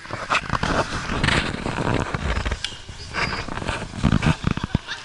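Rumbling and buffeting on the camera's own microphone, with irregular knocks and crackles, starting abruptly and loud.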